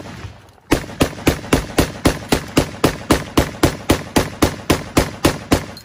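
Rapid semi-automatic fire from a Micro Draco AK pistol in 7.62×39: one shot, a short pause, then a long even string of shots at about four a second, each with a short echo.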